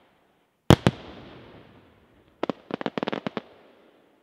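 Daytime aerial fireworks shells bursting overhead: two sharp bangs close together about a second in, with an echo that fades away, then a quick run of about ten cracks a little later.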